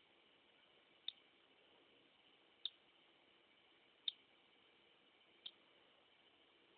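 Hatching cockatiel chick making four short, sharp, high clicks or peeps, evenly spaced about a second and a half apart, over faint hiss.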